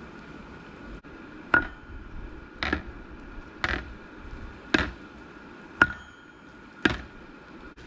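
Six hammer blows on metal, about one a second, each with a short metallic ring.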